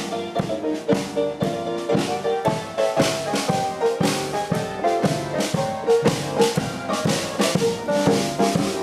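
A small live band plays: a drum kit keeps a steady beat under an upright double bass and a keyboard.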